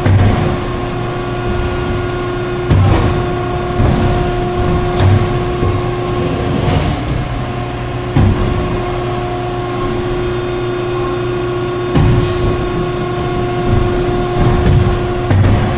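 Hydraulic injection blow molding machine running on its automatic cycle. A steady pump hum runs throughout, with repeated clunks and short hisses every few seconds as the molds and stations move.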